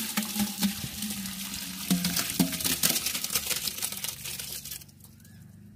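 Chicken gravy being ladled into a large metal pot: thick liquid splashing and pouring, with sharp clinks and scrapes of a metal ladle against the pot, stopping about five seconds in.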